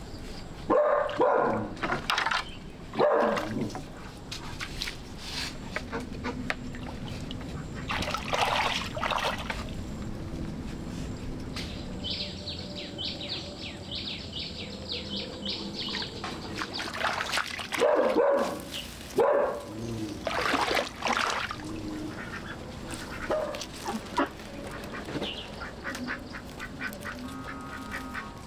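Farm poultry calling in loud, short, rough bursts: once about a second in, again near three seconds and near eight, then a cluster a little past halfway. Between them there is a run of quick, high chirps.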